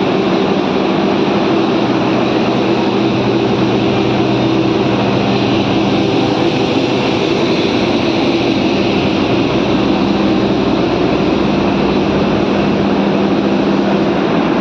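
A stationary train's engine running steadily: a loud, even drone with a low hum that does not change.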